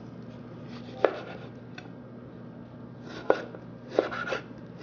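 Chef's knife slicing partly frozen beef tenderloin (filet mignon) on a wooden cutting board: one crisp cut about a second in, then a quick run of three cuts near the end. The meat is still a little frozen, so each cut has a crunchy "sususeuk" sound.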